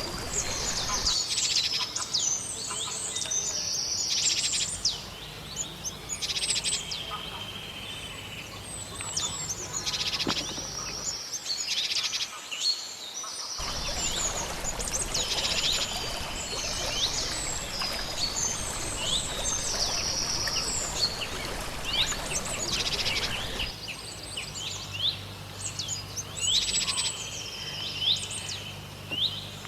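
Small songbirds chirping and singing in a dense chorus of quick high chirps, trills and downward-sweeping notes. A faint low hum underneath drops out and returns a few times.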